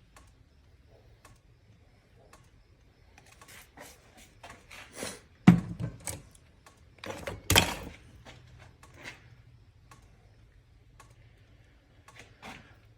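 Hands working at a bench: scattered clicks and light clatter, with two louder knocks about halfway through, over a faint steady low hum.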